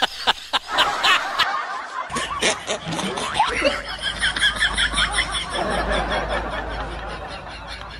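Rapid, repeated laughter, a run of 'ha ha ha' syllables, with a short break about two seconds in before a faster, higher run of laughing. A low hum sits under the second half.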